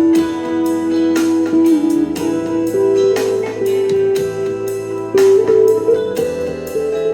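Guitar music from a jam: a melody of held notes that slide from one pitch to the next, over a steady repeating rhythm.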